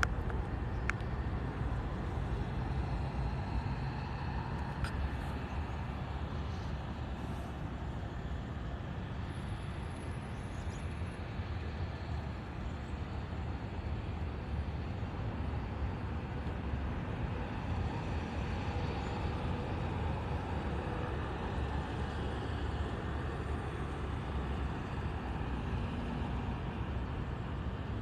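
Steady low outdoor rumble, with a few faint sharp clicks in the first few seconds.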